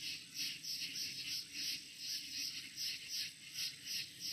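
Night chorus of calling frogs or insects, pulsing evenly about two to three times a second, with a faint steady high drone behind it.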